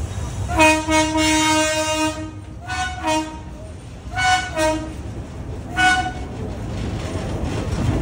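Diesel locomotive's horn sounding one long blast and then five short toots, over the low rumble of the train, which swells near the end as the locomotive runs past close by.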